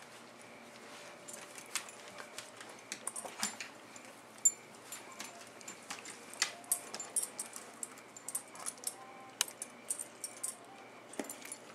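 Metal dog-collar tags and a leash clip jingling in short, irregular clinks as two black Labradors scuffle over a leash.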